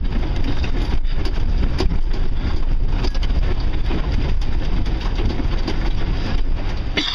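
4x4 truck driving over a rough, rocky trail: steady engine and road rumble with frequent knocks and rattles as it bounces over bumps.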